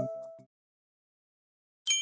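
The last piano-like keyboard note of background music fades out, then there is a stretch of dead silence. Near the end a bright, bell-like ding strikes and rings on.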